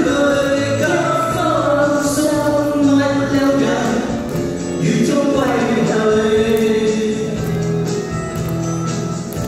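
A Chinese pop song sung by men and a woman into microphones over a backing track; the singing gives way to the backing music alone about two-thirds of the way in.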